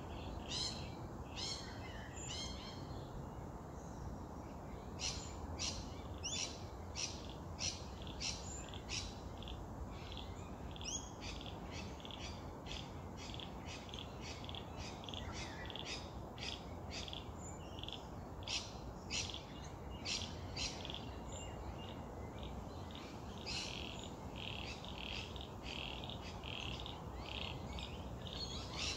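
Chorus of short, high chirping calls from small animals, often coming about two a second in runs, over a steady low background hiss.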